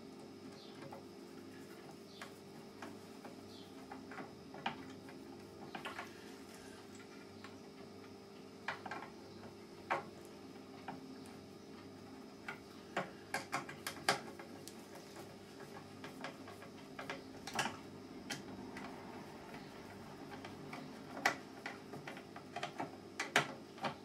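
Scattered small clicks and taps of a hand screwdriver and a small screw being worked into a wooden part, coming in irregular clusters in the second half, over a faint steady hum.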